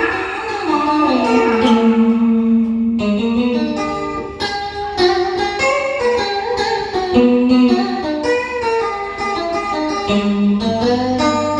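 Instrumental music: a plucked guitar plays a winding melody over an accompaniment, with no singing.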